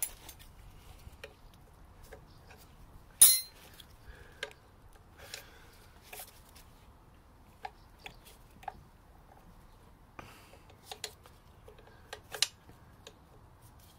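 Scattered metallic clinks and taps of a hand tool against a Triumph Stag's gearbox bellhousing and clutch release parts while a fitting is unscrewed. One sharp clink about three seconds in is the loudest.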